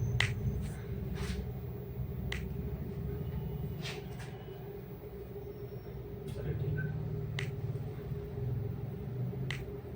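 About six sharp, short clicks spread over several seconds, over a steady low hum and rumble.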